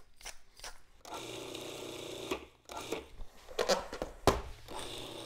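A few dry clicks, then a small electric motor starts about a second in and runs steadily, with several sharp knocks over it.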